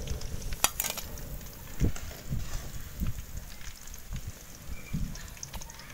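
Wind rumbling on the microphone, with a few sharp metallic clicks of a wire-mesh spider strainer against an aluminium kadai as fried chicken pieces are lifted out of the oil.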